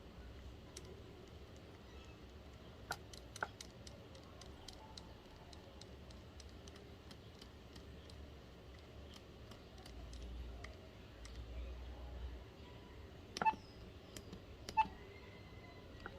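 Faint, irregular clicks of the BlackBerry Curve 8520's buttons being pressed, with two louder clicks about thirteen and fifteen seconds in, over a low hiss.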